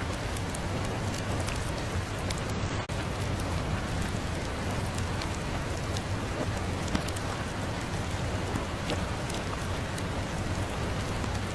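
Steady rain, a dense hiss scattered with sharp ticks of individual drops over a low rumble. The level dips for a moment just under three seconds in.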